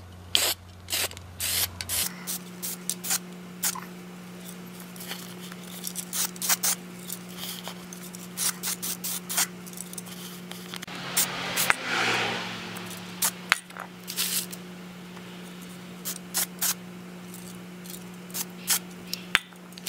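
Aerosol spray can of matte black paint sprayed onto an alternator pulley in many short bursts, with one longer spray near the middle, as a rust-preventive coat. A faint steady hum runs underneath.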